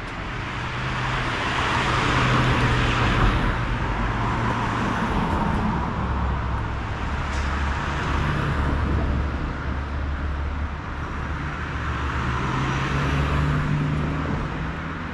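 Street traffic: cars driving past with their engines running and tyres on the road, the sound swelling twice as vehicles go by.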